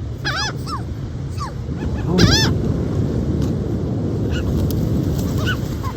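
Seagulls calling: short, arched squawks, a cluster in the first half with the loudest about two seconds in, then fainter single calls later, over a steady low rush of wind and surf.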